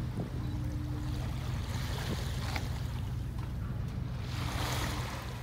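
Steady low drone of a whale-safari boat's engine over the wash of the sea, with wind on the microphone; a louder rush of noise comes about four seconds in.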